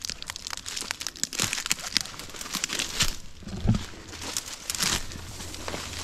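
Dry brush, leaves and twigs crackling and rustling as someone pushes and steps through undergrowth, a dense run of irregular snaps and crinkles.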